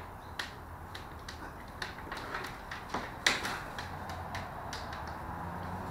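Blue-and-gold macaw bathing in a shallow plastic tub of water: irregular splashes and wing flaps, the loudest a little over three seconds in.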